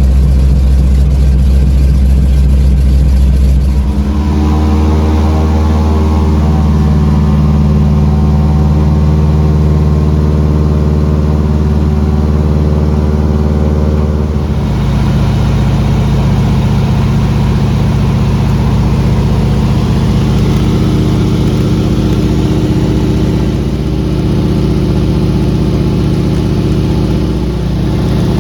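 Loud engine running steadily with a stack of even tones. It shifts to a new steady pitch about four seconds in and again about fourteen seconds in, as the power setting changes.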